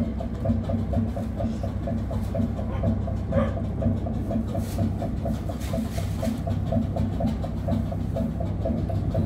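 Slow-running engine of a small harbour pusher boat (opduwer) running steadily with an even beat of about five pulses a second.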